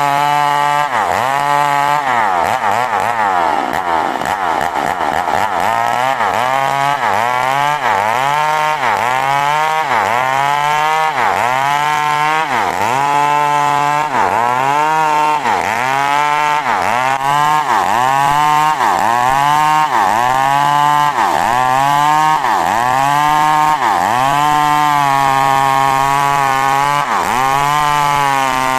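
Two-stroke chainsaw running at high revs while ripping coconut wood into boards. The engine pitch dips and recovers about once a second as the saw is worked through the cut.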